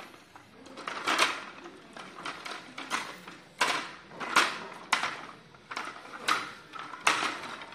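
Plastic push-along toy dog clattering over a stone floor as it is pushed: a run of sharp, irregular plastic clacks and rattles, several a few seconds apart.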